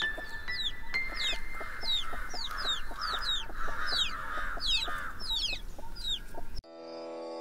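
Chickens clucking with many short, falling peeping chirps, as of a yard flock. About six and a half seconds in it cuts off abruptly and a sustained instrumental music drone begins.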